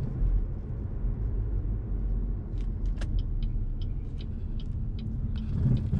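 Car driving, heard from inside the cabin: a steady low road and engine rumble, with a run of faint light ticks in the middle.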